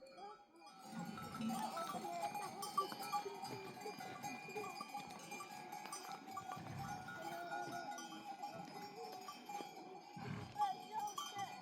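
Many goat bells on a moving herd jingling and clinking continuously, starting about a second in.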